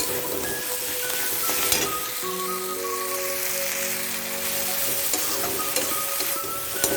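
Tomato-onion masala frying and sizzling in oil in a kadhai while it is stirred and roasted. A few sharp clicks of the spoon against the pan.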